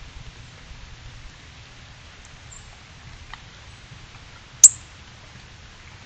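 A single sharp, high chip note, typical of a northern cardinal, about four and a half seconds in and much louder than everything else. Under it runs a steady hiss with a faint low rumble and one soft tick.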